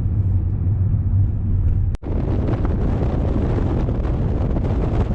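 Wind buffeting the microphone with a heavy, steady rumble, broken by a sudden cut about two seconds in.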